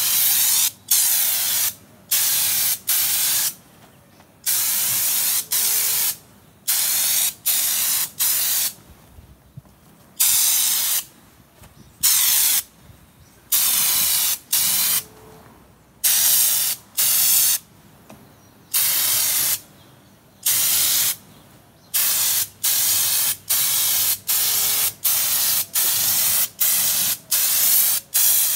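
Compressed-air spray gun with a Raptor bedliner bottle, triggered again and again to spray textured bedliner onto a metal filing cabinet. It makes a loud hiss in short bursts, some under half a second and some over a second, with brief pauses between them, about one burst a second.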